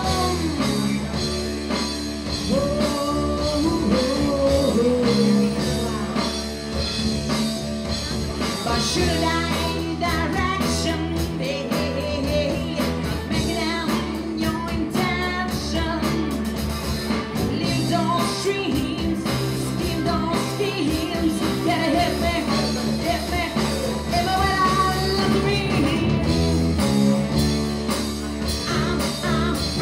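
Live rock band playing: a woman singing lead over electric guitar, bass guitar and drums.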